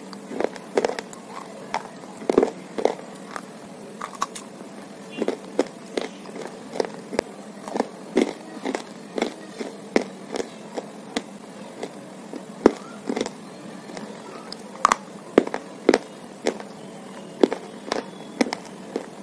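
Close-up crunching of white slate bars (baked edible clay) being bitten and broken: sharp, irregular crunches and snaps about one or two a second, some much louder than others.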